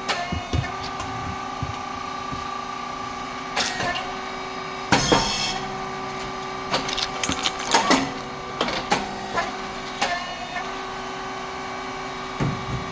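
SYP4509 rice cake popping machine running: a steady hum from its motor and hydraulic pump, with mechanical clatter and knocks as the moulds cycle. About five seconds in there is one loud, short burst with a hiss as a mould opens and the rice cakes pop.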